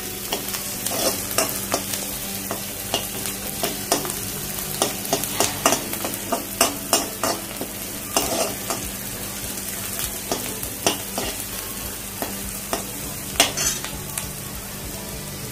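Chopped onion and green chilli frying in oil in a metal kadhai, sizzling steadily while being browned, as a steel spoon stirs and scrapes against the pan in many irregular strokes.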